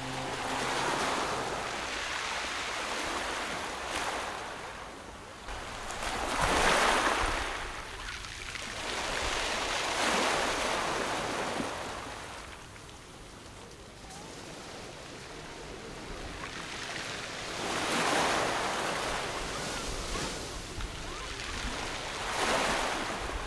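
Sea waves breaking and washing on the shore. The surf swells and falls back several times, loudest about seven seconds in.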